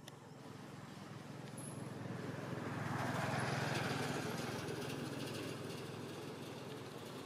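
A motor vehicle passing off-camera: a steady low engine hum with a rush that grows louder to a peak about three and a half seconds in, then fades.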